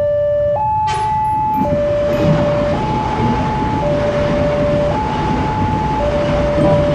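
Two-tone hi-lo siren alternating steadily between a low and a high note, each held about a second, over a steady rushing noise that comes in about a second in.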